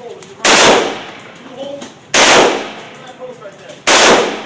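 Three single gunshots fired at a steady pace, about a second and a half to two seconds apart, each cracking sharply and then trailing off in an echo.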